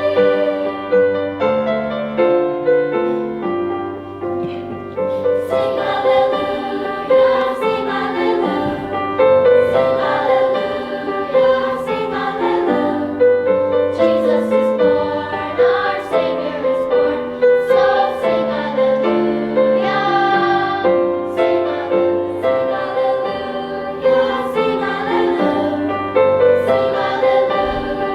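A choir singing in parts, with sustained, continuously moving sung notes.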